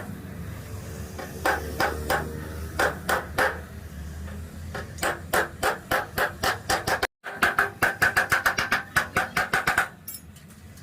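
Hammer striking the pressed-steel body panel of a classic Vespa, giving sharp ringing metallic blows, first in short groups, then a fast run of about eight blows a second that stops about ten seconds in.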